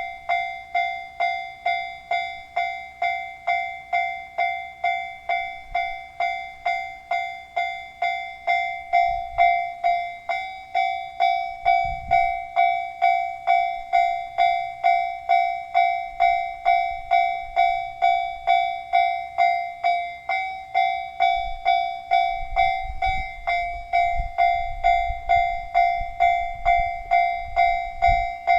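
Japanese railway level-crossing warning bell ringing in an even rhythm of about two strikes a second, the crossing closing for an approaching train. A low rumble sits under it in the last several seconds.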